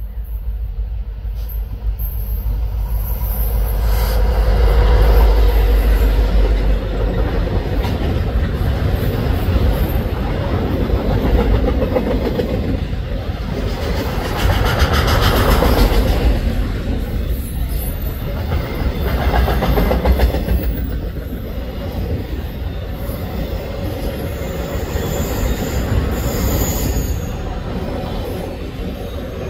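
Canadian National freight train passing close by, led by an SD70M-2 and a C44-9W diesel locomotive. A heavy low rumble is strongest in the first several seconds. Then the autorack cars roll past with a steady rumble and clatter that swells and fades, and brief high wheel squeals come near the end.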